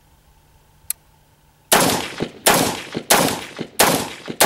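AR-15 rifle fired semi-automatically: five shots about three quarters of a second apart, each with a short echoing tail, after a light click.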